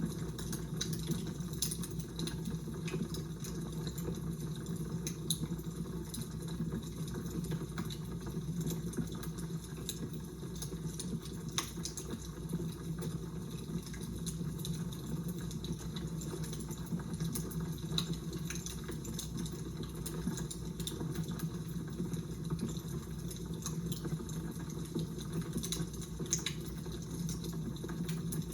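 Fire crackling: a steady hiss and low rumble with many small, irregular pops and snaps scattered throughout.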